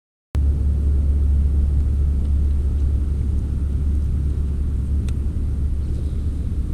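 Steady low rumble of wind buffeting the camera's microphone, with a faint click about five seconds in.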